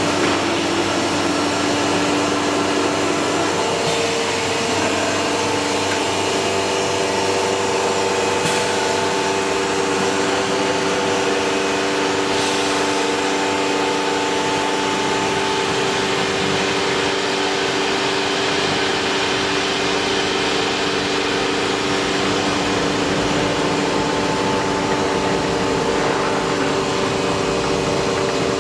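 CNC woodworking machining centre with automatic board feeding running: a steady, noisy rush with a continuous whine of several steady tones, which shift pitch a few seconds in.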